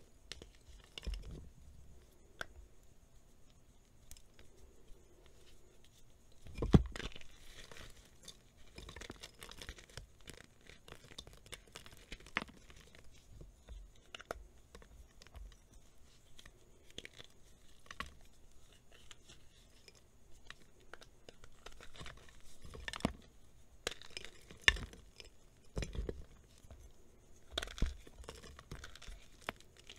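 Dried gym chalk blocks, reformed in plastic containers, being broken and crushed by hand: irregular crisp cracks and crunches as pieces snap, with softer crumbling in between. The loudest crack comes about seven seconds in, and a run of sharper cracks comes in the last third.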